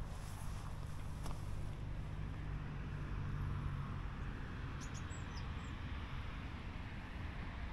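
Outdoor ambience: a steady low rumble with a few short, high bird chirps about five seconds in.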